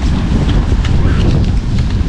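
Wind buffeting the microphone, a loud, steady low rumbling noise.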